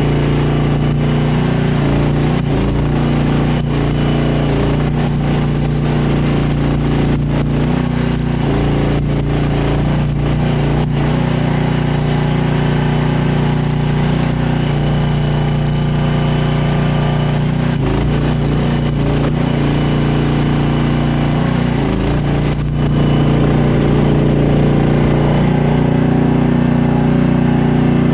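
Small 15-horsepower engine of a mini skid steer running steadily, with scattered clicks and knocks from the machine. It gets a little louder near the end.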